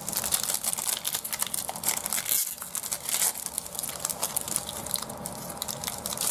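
Foil trading-card pack wrapper crinkling and being torn open, with dense crackling throughout and a brief pause about two and a half seconds in.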